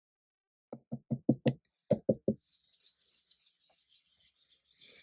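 A quick run of about eight knocks, then a steady, rapid, soft scratchy patter of a bristle brush dabbing ink onto smooth card.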